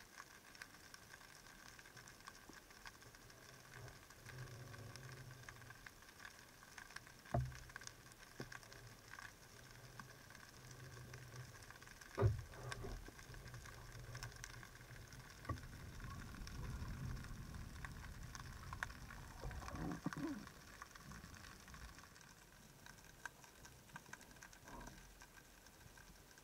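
Underwater ambience through an action camera's housing: a faint steady crackle, broken by two sharp knocks about seven and twelve seconds in and a low rumble for a few seconds past the middle.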